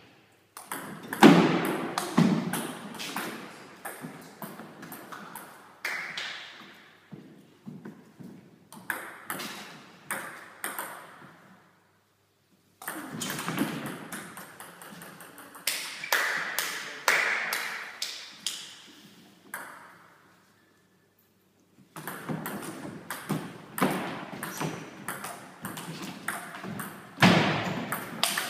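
Table tennis rallies: the ball clicks off the table and the players' rubber bats in quick alternation, in runs broken by short pauses between points.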